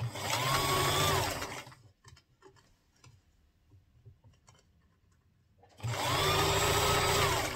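Bernina Sport electric sewing machine top-stitching through fabric and crinoline in two short runs a few seconds apart. In each run the motor whine rises as it speeds up and drops as it stops. Faint clicks of fabric handling come in the pause between the runs.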